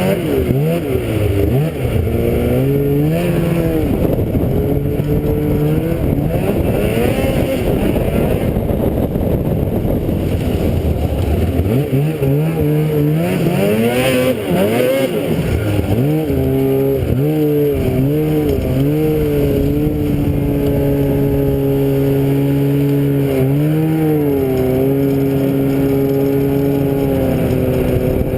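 A small vehicle's engine under way, its pitch rising and falling with the throttle through the first half, then holding a steady speed from about halfway, with a brief dip and recovery near the end.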